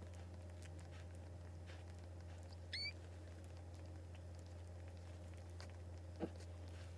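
A newborn Boston Terrier puppy gives one short, high squeak about three seconds in, over a steady low hum. A faint knock follows near the end.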